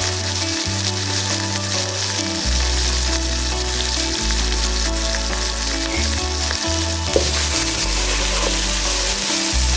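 Chicken frying in oil in a karahi: a steady sizzling hiss, with one sharp click about seven seconds in.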